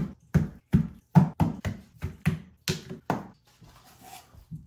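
Rocks being set down one after another on a rubber foam mat and knocking against each other as they are piled up. About a dozen sharp knocks come roughly three a second, then thin out near the end.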